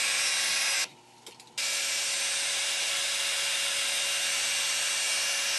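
Electric power tool running steadily, switched off for under a second about a second in, then started again.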